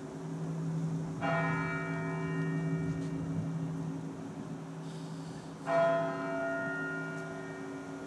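Russian Orthodox monastery bells being rung by hand from the belfry: a low bell's hum lingers under two strikes of higher-pitched bells, one about a second in and a louder one near six seconds.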